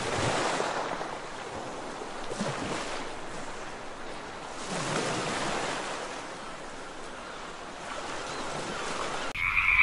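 Sea surf washing on a sandy shore: a steady rush that swells near the start and again about halfway through.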